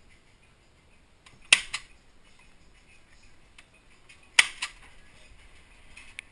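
A long-reach stapler driving two staples through a zine's spine, about three seconds apart. Each is a sharp clack followed by a lighter click.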